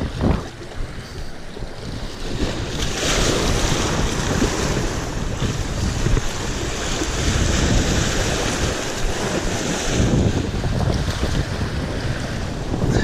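Surf washing and foaming over rocks, with wind buffeting the microphone as a low rumble. The rush of water swells louder from about three seconds in and eases near ten seconds.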